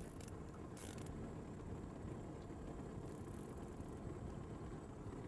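Fishing reel being cranked, faintly, as a hooked flounder is reeled in, with a few short hissy bursts.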